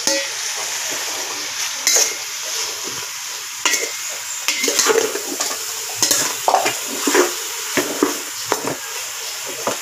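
Chopped meat, tomato and onion sizzling in an aluminium pot while a metal spoon stirs them, scraping and knocking against the pot at irregular moments.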